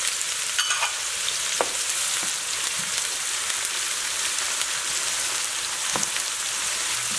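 Diced onion, jalapeño and tortilla pieces sizzling steadily in hot lard in a stainless steel pan, stirred with a plastic spoon, with a few light clicks.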